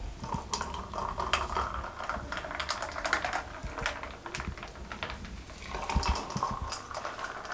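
Blended cucumber juice poured from a glass jug into a tall glass over ice cubes: a steady pouring hiss with the ice clicking and crackling against the glass. About five seconds in the pour moves on to a second glass of ice.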